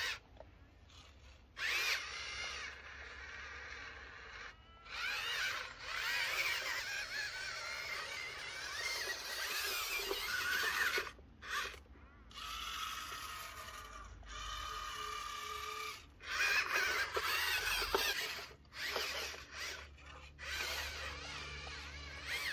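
Small electric motors and plastic gearboxes of RC construction models whining, the pitch rising and falling as they run. The sound stops and starts abruptly several times.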